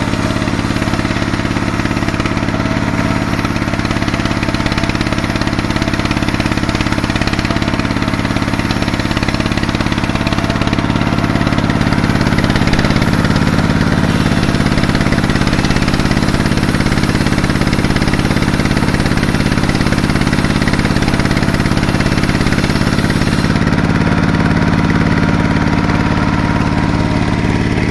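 Sawmill machinery running while ripping a log: a steady engine drone with a rougher sawing noise that thickens and grows a little louder through the middle of the stretch.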